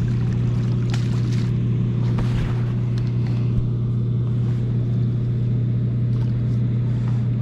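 A steady low mechanical hum runs throughout, with splashing water as a steelhead is scooped into a landing net near the bank.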